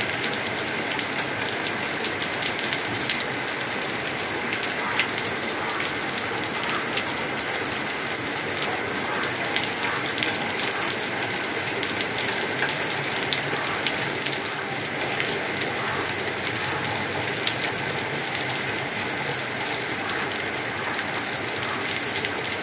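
Heavy rain falling steadily, hissing and splashing on waterlogged ground, with many sharp ticks of nearby drops hitting close by.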